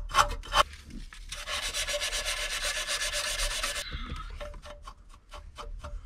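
Sandpaper scuffing a metal ground point on the car body under the dashboard. Short back-and-forth strokes in a steady rhythm, with a stretch of faster continuous scrubbing in the middle before the strokes return.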